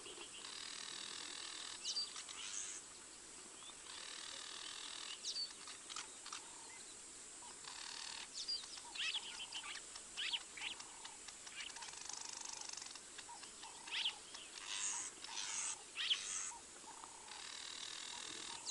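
Wild birds chirping and calling. A buzzing trill comes in stretches of about two seconds, several times, between quick high chirps.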